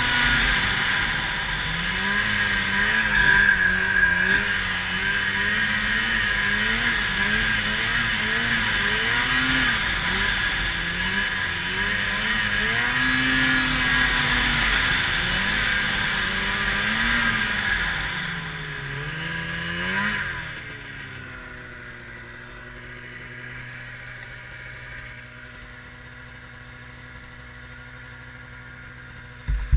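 Arctic Cat 700 two-stroke snowmobile engine running under load, its revs rising and falling with the throttle through deep snow. About two-thirds of the way through it revs up briefly, then drops to a steady idle, much quieter.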